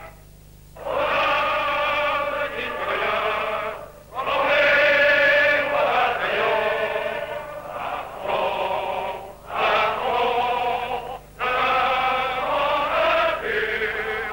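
Male voices singing together in long held phrases, with short breaks between them: a men's choir on an old newsreel soundtrack.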